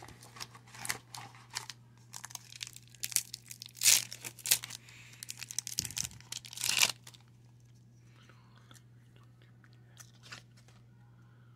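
Foil wrapper of a 1996 Pinnacle baseball card pack crackling and tearing as it is pulled from the box and ripped open, a run of sharp crinkles over the first seven seconds. After that there is only faint handling of the cards, over a steady low hum.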